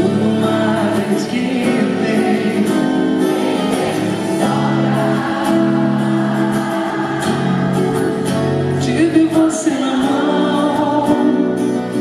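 A woman singing a slow song into a microphone, accompanied by her own strummed acoustic guitar.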